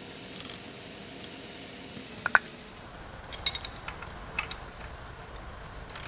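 A few scattered metal clinks and knocks from tools and engine parts being handled: one sharp knock about two seconds in, then a short ringing clink about a second later and a couple of lighter taps.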